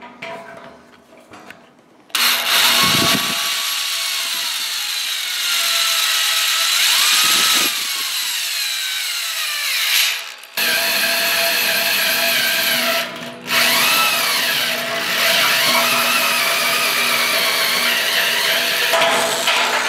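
Corded drill driving a bimetal hole saw through the stainless steel wall of a brewing kettle, cutting a 1-1/4-inch element hole. The cut is a harsh screeching grind with squealing tones that wander up and down. It starts about two seconds in and breaks off briefly twice, around ten and thirteen seconds.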